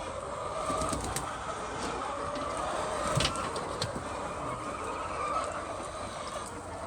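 A flock of hens calling and clucking together in a steady, overlapping chorus, with a few sharp clicks or knocks.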